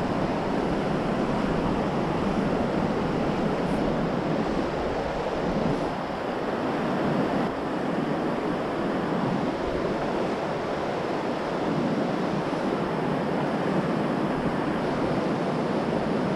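River water rushing steadily over a stony bed through a shallow riffle.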